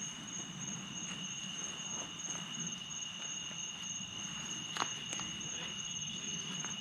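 Night insects, crickets or katydids, trilling in a steady chorus of two constant high-pitched tones, with a few faint footsteps and one sharper snap or step about five seconds in.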